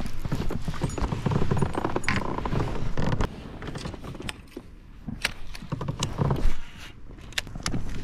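Baitcasting reel being cranked and handled on the rod, with a rustling churn at first, then a run of sharp clicks and knocks from the reel and rod gear.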